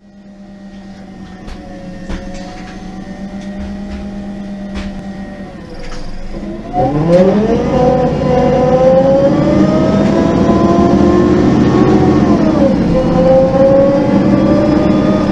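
MAN NG 273 articulated city bus's LPG engine heard on board: a steady idle hum at first, then about seven seconds in it gets louder and rises in pitch as it pulls under load through its Voith automatic gearbox. The pitch dips once, about three quarters of the way through, as the gearbox shifts, then climbs again.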